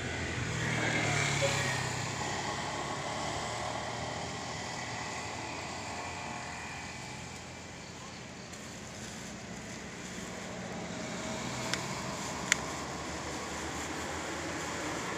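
Road traffic noise: a passing vehicle's engine hum in the first few seconds, fading into a steady background rumble. Two sharp ticks come less than a second apart near the end.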